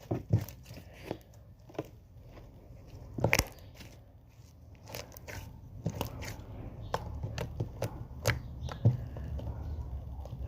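Slime being squished, with irregular sharp pops and clicks.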